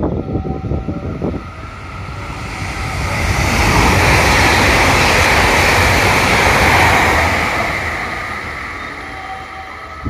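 A train passing at speed: a rush of wheel and rail noise that builds over about two seconds, is loudest for about three seconds, then fades away.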